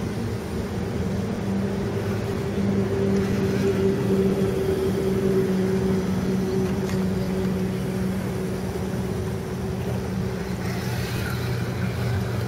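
Steady mechanical motor hum at a constant low pitch, with a brief higher wavering whine coming in near the end.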